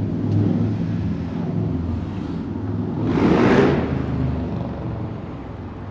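Car engine running with a low rumble of road noise, heard from inside the car. A louder rushing swell comes about three seconds in, then fades.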